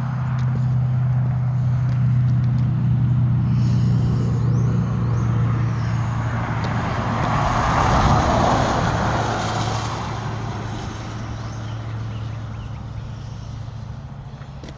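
A car driving past on a wet road. Its engine hum and tyre noise swell to a peak about eight seconds in, then fade away.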